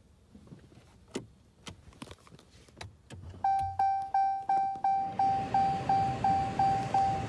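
A car's warning chime beeping evenly about three times a second, starting about three and a half seconds in, after a few scattered clicks. A steady rushing noise comes up under the chime about five seconds in.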